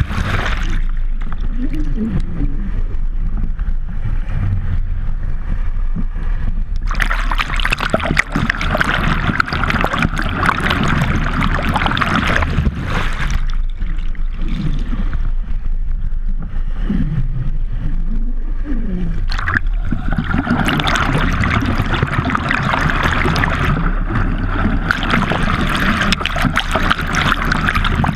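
Water rushing and splashing over a GoPro Hero 3 in its waterproof housing as a subwing board is towed through a lake. The sound switches several times between a muffled underwater rush and a brighter, hissing splash and spray as the camera breaks the surface.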